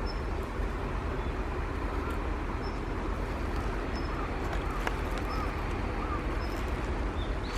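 Steady outdoor background noise with faint bird chirps: short, small calls repeating every second or so, and a few brief high peeps.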